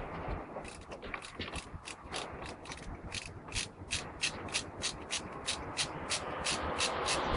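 Hand ratchet wrench clicking in a steady run of quick, even clicks, about three to four a second, speeding up slightly toward the end.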